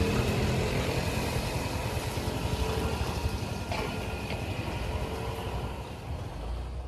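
Steady rumble of vehicle engines in traffic, fading out near the end.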